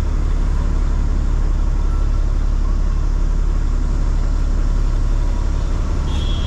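Heavily loaded truck's engine running at low speed on a rough road, heard from inside the cab: a steady low rumble with road noise.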